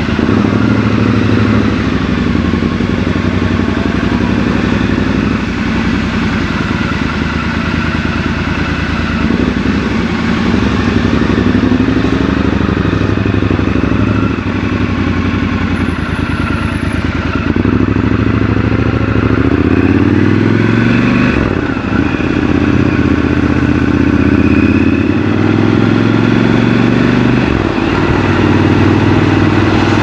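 Triumph Scrambler 1200 XC's 1200 cc parallel-twin engine running while being ridden, its pitch rising and falling as the throttle is opened and closed.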